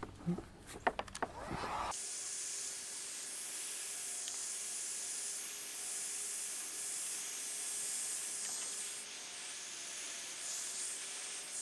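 Handheld electric heat gun switched on and blowing hot air onto heat-shrink tubing over wire connections, a steady hiss. A few light clicks and knocks from handling come first, and the hiss starts abruptly about two seconds in.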